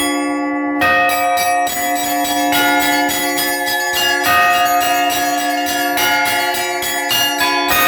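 Orthodox church bells rung by one bell-ringer on a belfry: the small high bells are struck in quick patterns over the lingering hum of the larger bells. The quick high strikes pause briefly at the start and resume about a second in.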